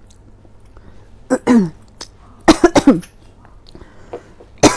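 A person coughing: one cough about a second in, then a quick fit of three or four coughs in a row.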